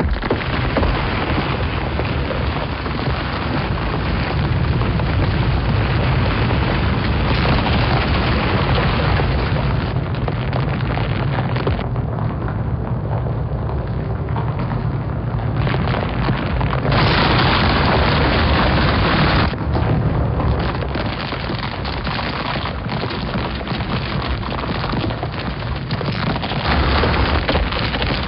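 Isolated film sound-effects layer of a huge rolling stone boulder: a continuous heavy low rumble mixed with dense crackling, crumbling noise, starting suddenly. About two-thirds of the way in it turns brighter and harsher for a couple of seconds, then settles back.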